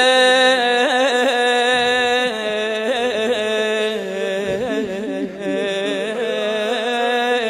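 A man sings an unaccompanied Shia religious lament in a long melismatic phrase. He holds one wavering note for about two seconds, then winds through quick vocal turns on the word 'عمي' ('my uncle').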